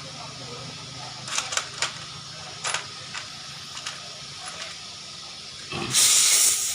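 Compressed air from a tire changer: a few sharp metal clicks and knocks, then about six seconds in a loud rush of air hiss starts.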